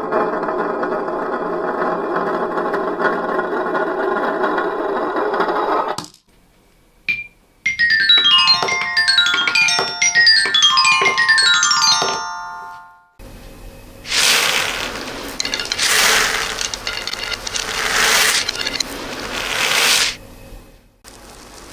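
A xylophone sounding in overlapping descending runs of clear struck notes, between two other sounds. Before the runs comes a dense, steady wash of many ringing tones, then a brief pause with a single click. After them, small falling beads rattle in swells about every two seconds.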